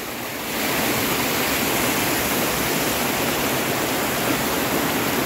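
Water rushing over rocks: a small stream cascading down a stony bank into a river, a steady noise that swells slightly about half a second in.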